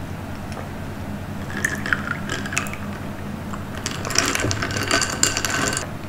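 Crinkling and scraping of food packaging being handled, in two bursts: a short one about a second and a half in, and a longer, louder one about four seconds in that stops abruptly.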